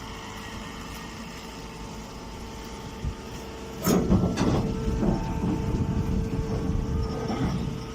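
Portable straw baler machine running with a steady motor hum. About four seconds in, a loud burst of mechanical clattering and knocking starts and goes on for about three seconds.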